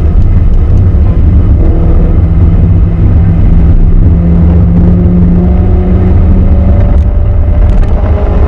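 Renault Clio RS Gordini's four-cylinder engine running hard at high revs on track, a loud steady note that climbs slightly and then shifts about six and a half seconds in, over tyre and road noise.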